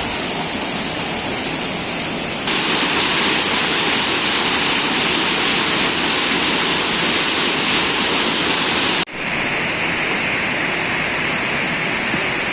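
Waterfall rushing: a loud, steady roar of falling and churning water. It cuts out for an instant about nine seconds in and comes straight back with a slightly different tone.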